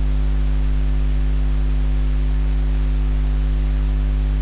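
Steady electrical mains hum: a low buzz with several overtones over a faint hiss, unchanging.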